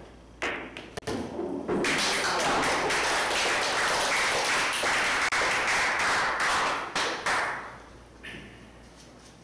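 Pool balls clacking together as a shot plays out, with sharp clicks in the first second. From about two seconds in, roughly five seconds of loud, dense crackling noise follows.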